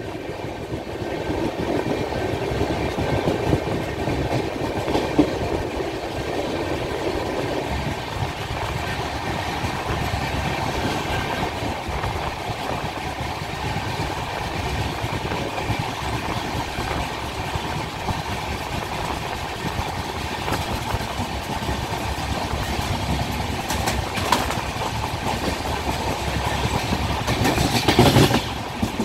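Passenger train running, heard from on board: a steady rumble of wheels on the rails, with a few sharp clatters of the wheels over the track and a louder burst of clatter near the end.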